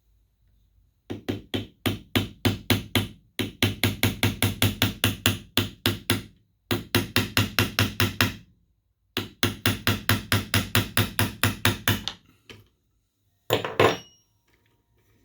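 Hammer rapidly tapping a steel punch against the hook of a watch bracelet clasp, driving the hook closed so the clasp stops popping open. The light strikes come about six a second in four runs with short pauses, followed by a couple of separate hits near the end.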